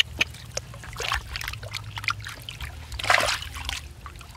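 Hands splashing and sloshing in shallow muddy water while grabbing at small fish, with water trickling. The loudest splashes come about a second in and about three seconds in.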